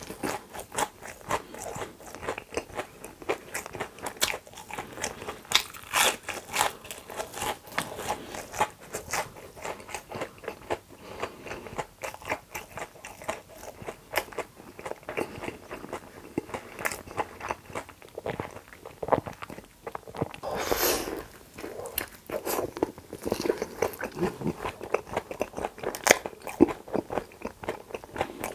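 Close-miked chewing and biting of fast food: a dense run of small wet chews and crisp crunches. One longer, louder noisy sound comes about twenty-one seconds in.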